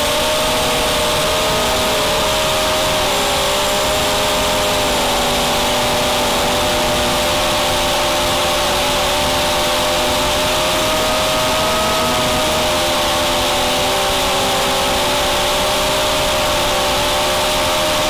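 Brushless motors and propellers of a QAV250 racing quadcopter in flight, heard from its onboard camera: a steady whine of several tones that shift up and down a little, over a steady hiss.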